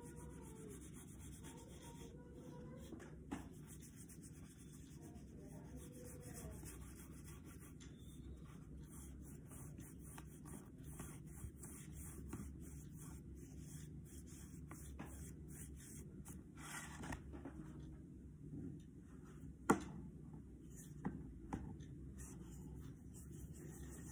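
Paintbrush loaded with poster colour stroking back and forth on paper in repeated, faint rubbing strokes while the colours are blended. A few light knocks come in the second half, the loudest about 20 s in.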